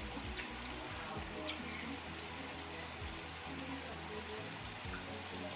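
Chayote and pork belly sizzling steadily as they sauté in a frying pan, a soft even hiss with a few faint ticks.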